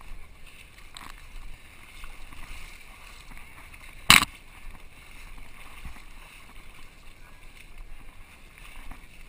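Someone crawling through shallow muddy water under a cargo net: low sloshing and splashing of water. One sharp knock about four seconds in.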